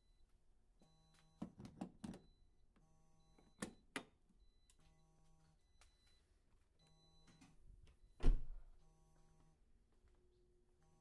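A repeating electronic beep, one pitched tone of about two-thirds of a second every two seconds or so, with scattered sharp clicks in the first four seconds and a heavy thud about eight seconds in.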